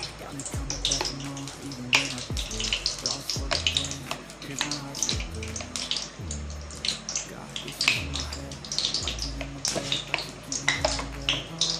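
Cooking oil poured in a thin stream into a kadhai, with a pouring splash and fine crackling as it hits the hot pan. Background music with a deep bass beat plays underneath.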